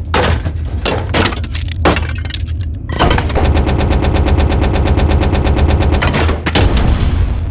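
Metal mechanism sound effects: a few separate metallic clacks, then from about three seconds in a fast, even mechanical rattle of clicks lasting about three seconds, then more clacks near the end. A low, steady industrial hum runs underneath.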